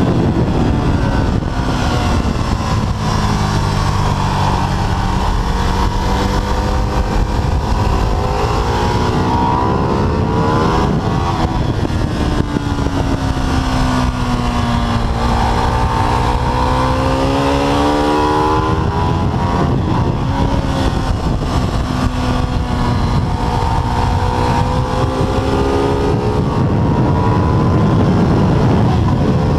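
Ducati 848's 849 cc L-twin engine heard from the bike itself over a steady rush of wind, its pitch dropping as the bike slows for corners and climbing again as the throttle opens, three times over.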